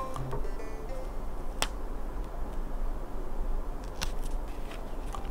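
Small handling sounds of stickers being worked with a plastic sticker tweezer: light ticks and taps of plastic on paper, one sharp click about a second and a half in and a few more near the end.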